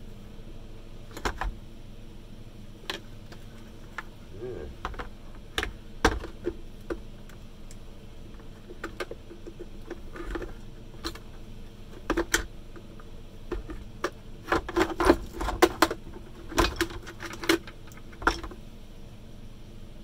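Scattered clicks, taps and knocks of a screwdriver and gloved hands working on the hard plastic housing of a Henry vacuum cleaner being dismantled, with a busier run of clicks and rattles in the second half.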